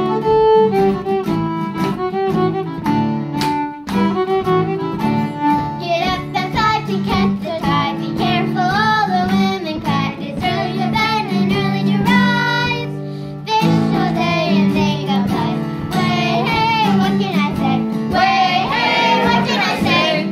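A sea shanty played on fiddle and strummed acoustic guitar, with a boy and a girl starting to sing about five seconds in over the guitar.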